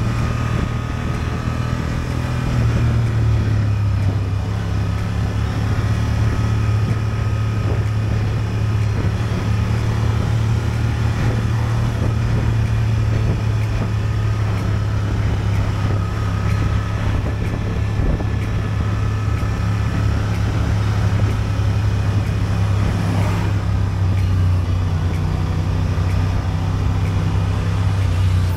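Honda Transalp's 755 cc parallel-twin engine running steadily under way.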